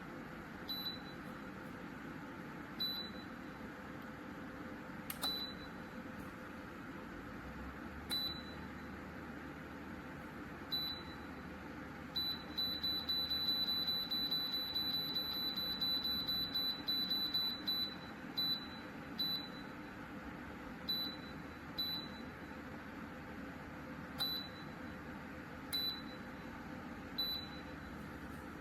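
Electric fan heater's control panel beeping as its buttons are pressed: single short high beeps every second or two, with a quick run of beeps lasting several seconds midway, over a steady low hum.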